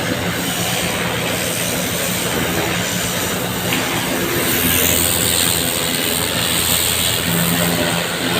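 Engine running steadily under a steady rushing hiss of water spraying from a hose during flushing; the engine hum grows a little stronger about halfway through.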